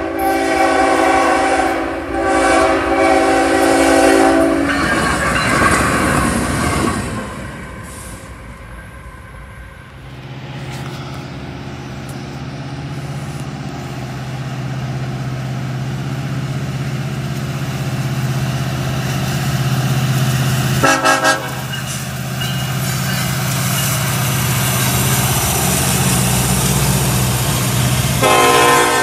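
Diesel freight train's multi-note air horn sounding two blasts as it approaches a grade crossing. Then freight locomotives pass with a steady low engine drone and rolling wheel noise, with a short horn blast about 21 seconds in and another horn sounding near the end.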